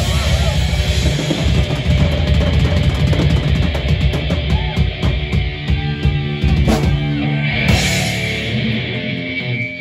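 Black metal band playing live: heavily distorted B.C. Rich electric guitars over fast drums and crashing cymbals. About eight seconds in the band cuts off, leaving a steady high ringing tone.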